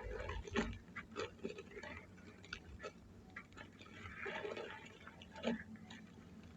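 Soft charcoal ash being crushed and crumbled on a hard floor: irregular crunches and crackles, with a denser run of crunching about four seconds in and sharp single crunches about half a second in and near the end.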